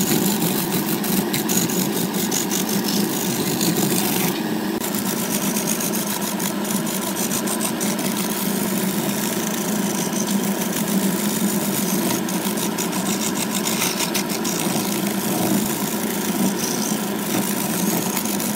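Wood lathe running with a steady hum while a hand-held turning tool cuts a spinning segmented wooden vase, a continuous scraping as shavings peel off. The cutting noise lifts for a moment about four seconds in, leaving the lathe's hum.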